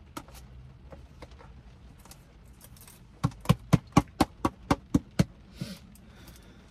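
Plastic salad-dressing bottle slapped on its end with the palm to work the dressing out: a quick run of about nine sharp thumps, about four a second, a little past halfway.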